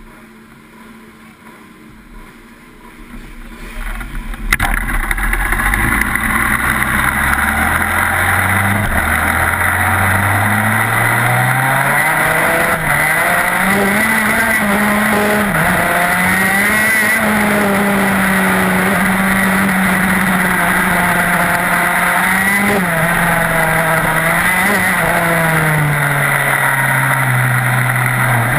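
TM K9B 125cc two-stroke shifter kart engine heard onboard. It is quiet for the first few seconds, then suddenly gets loud and climbs in pitch in steps as the kart accelerates up through the gears. It then holds a high pitch with several brief dips and eases off near the end.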